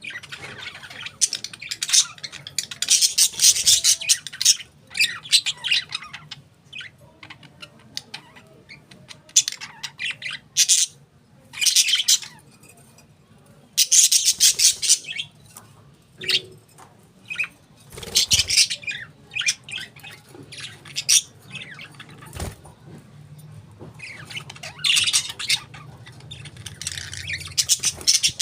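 Budgerigars chirping and chattering in clusters of rapid, high chirps with short pauses between them.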